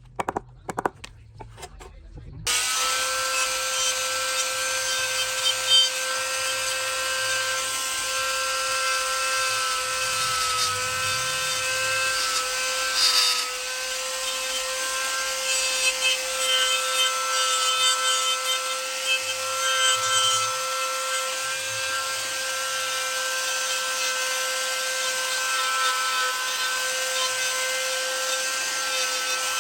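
A handheld electric power tool working wood: a few sharp taps, then about two seconds in the motor starts and runs steadily with an even whine over a rasping, abrasive noise from the wood.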